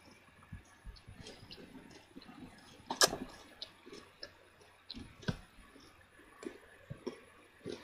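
A person biting into and chewing a crunchy Nesquik Maxi Choco chocolate cereal bar, made of chocolate-coated wheat balls: scattered small crunches and mouth clicks, with the sharpest crunch about three seconds in.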